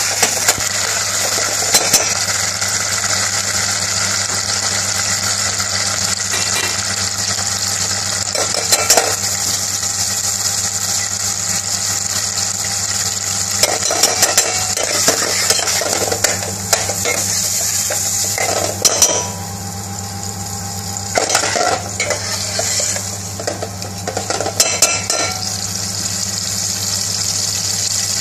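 Tomatoes and garlic frying in oil in a stainless steel saucepan, a steady sizzle, while a metal spoon stirs and mashes them, scraping and clinking against the pan at intervals, most often in the second half.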